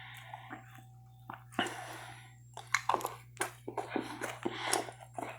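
Close-miked chewing and mouth sounds, with a run of short, irregular wet clicks starting about a second and a half in.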